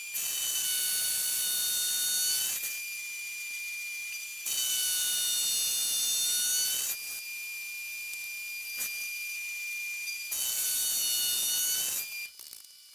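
Mill-drill spindle driving an indexable carbide face mill across a 4140 steel bar to mill a flat. Three cuts, each a loud hiss with high ringing tones lasting two to three seconds, alternate with quieter spells where the spindle runs in air with a steady high whine.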